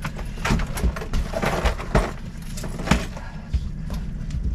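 Irregular knocks and clinks of the landing net and gear against the boat as a coho salmon is worked out of the net, over a low steady rumble.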